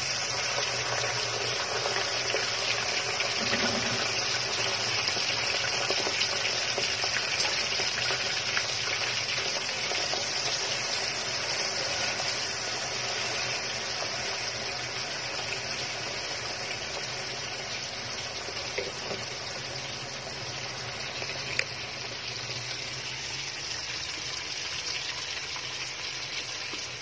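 Hot oil sizzling steadily around a whole chicken deep-frying. The sizzle starts abruptly and slowly eases off, with a single short tick about two-thirds of the way through.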